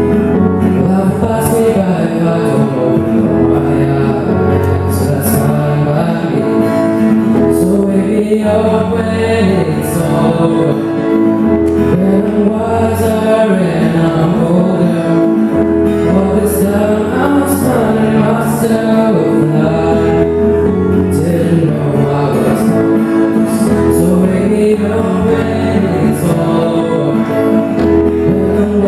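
A song performed live: a young male voice singing through a microphone, with acoustic guitar and keyboard accompaniment.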